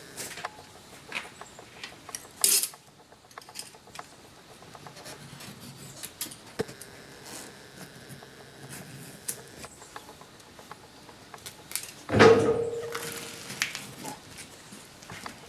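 Scattered metallic clinks and taps from working on a chainsaw chain with hand tools. A single loud metal clank rings out about twelve seconds in.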